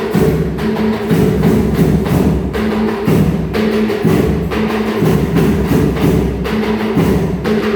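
Percussion band playing a hymn: loud, steady drumming under held low melody notes.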